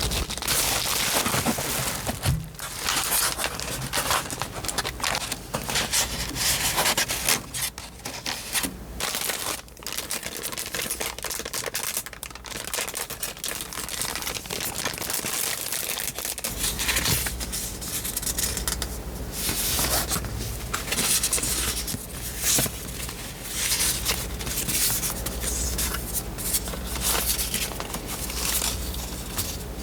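Paper and plastic packaging being handled and unwrapped by hand: irregular crinkling, rustling and tearing. A low steady hum comes in about halfway through.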